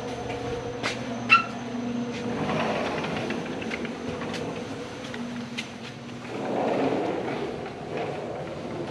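A steady mechanical hum with footsteps on concrete and then tile. Scattered clicks and one sharp metallic clink sound as a door is passed through.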